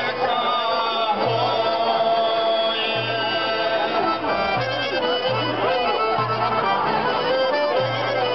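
Live Balkan folk dance music from an ensemble of plucked tambura-type lutes, a dense melodic line over a regular low bass beat.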